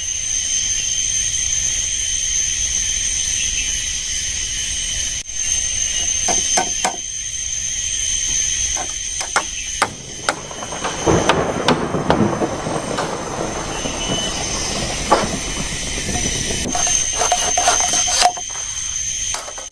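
Steady, high-pitched insect drone of the tropical forest, with scattered knocks and clicks from work at camp and a stretch of rougher rustling noise around the middle.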